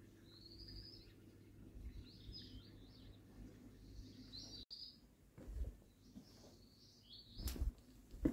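A songbird singing short, high chirping and warbling phrases several times over. There are a few low thumps and one sharp click near the end.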